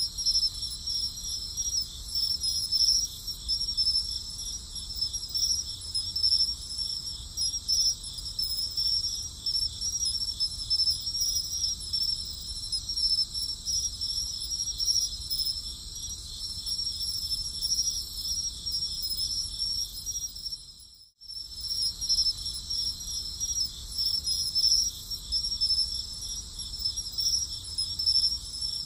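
A chorus of crickets trilling steadily, with a fine rapid pulsing. It cuts out for a moment about three quarters of the way through.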